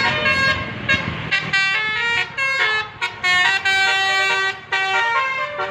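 Indonesian 'telolet' multi-tone bus horn playing a tune, a run of short clipped notes at changing pitches starting about a second in.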